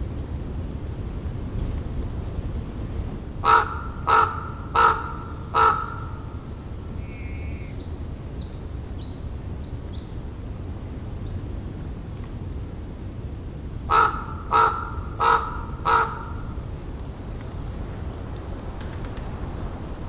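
Common raven calling: two series of four short calls, the second about ten seconds after the first, over the steady low rumble of distant ocean surf.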